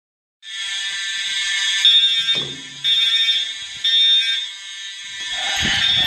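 Building fire alarm sounding: a loud, harsh tone that starts suddenly, holds steady for about a second and a half, then surges louder about once a second.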